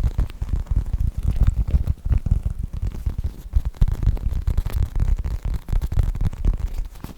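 Foam squishy toy squeezed and rubbed right against the microphone, making a rapid, irregular run of muffled low thumps and rumbling.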